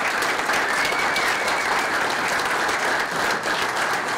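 Audience applauding, a steady crowd of hand claps.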